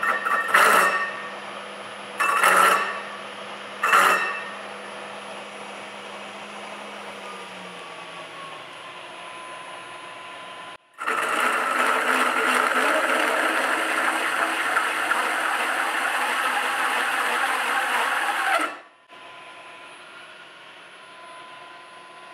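Carbide-toothed hole saw in a milling machine's drill chuck, cutting through a cast grinder guard. The spindle motor runs with a steady hum, with three loud grinding bursts in the first four seconds, and the motor note drops about eight seconds in. After a sudden break, a loud steady cutting noise runs for about eight seconds and cuts off abruptly, leaving the quieter running machine.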